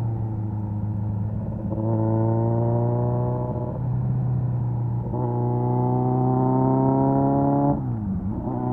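Kawasaki Z900's 948 cc inline-four engine through an SC Project aftermarket exhaust, pulling under way with its pitch slowly rising. Near the end the pitch briefly dips and comes back up.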